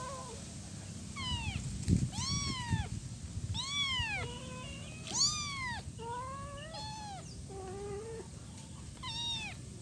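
A week-old kitten meowing over and over, calling for its mother: high-pitched cries, each rising and then falling in pitch, about eight in all, with a few low thumps about two seconds in.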